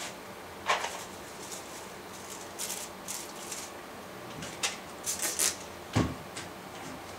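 Hands rolling wet hair onto spiral perm rods: soft rustles and small clicks of the rods and wraps being handled, with a sharp click about a second in, short hissy rustles, and a knock near the end.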